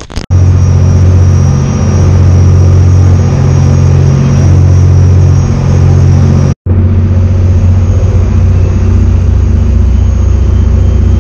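Boat engine running steadily under way, a loud continuous low rumble with a faint high whine above it; it cuts out for a moment about six and a half seconds in, then carries on.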